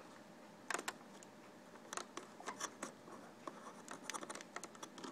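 Faint, scattered small clicks and scratches of fingers handling the TV's plastic housing and internal wiring, a couple about a second in and coming more often in the second half.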